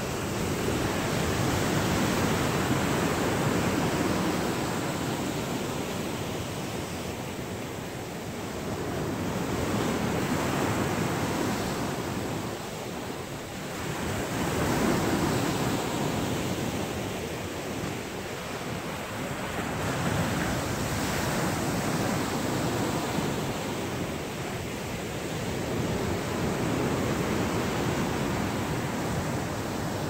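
Ocean surf: small waves breaking and washing in, a continuous rush that swells and fades in slow surges every few seconds.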